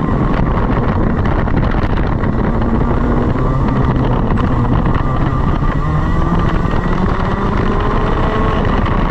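Racing kart engine running hard at speed on the track, heard close from on board, its revs dipping and climbing again through the corners.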